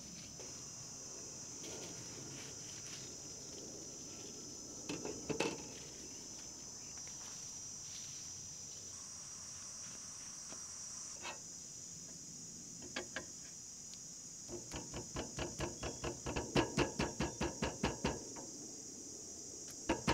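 A knife striking a wooden cutting board in quick repeated strokes, about five a second and growing louder, while scoring pork, starting about three-quarters of the way in, with a few single knocks earlier. Insects buzz in a steady high drone behind it.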